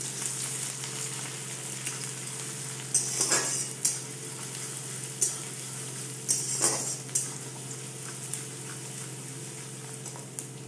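Finely chopped onion sizzling in hot oil and ghee in a wok, at the start of frying. A metal spatula stirring it scrapes and knocks against the pan a few times, about three seconds in and again around seven seconds.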